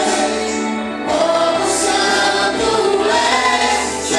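Group of voices singing a Portuguese worship song, holding long sung notes.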